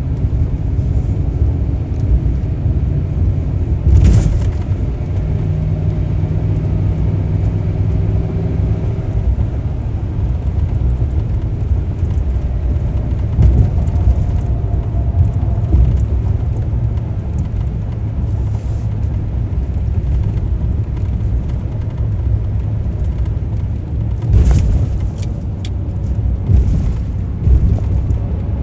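Steady low rumble of a car driving on the road, with a few sharp thumps, the loudest about four seconds in and another near the end.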